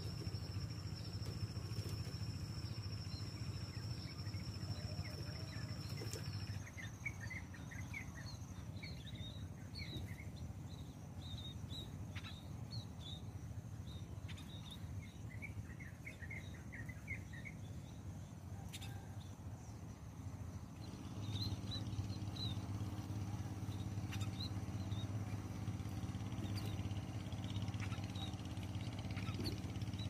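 Munias (emprit) chirping in short, quick series of thin high notes around a bird trap. Underneath is a steady low hum that strengthens about two-thirds of the way through, and a steady high-pitched whine runs for the first six seconds.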